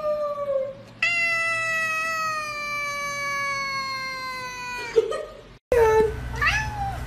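Tabby cat giving two long, drawn-out yowling meows, each held for a few seconds and slowly falling in pitch. About five and a half seconds in, the sound breaks off, and short swooping calls follow.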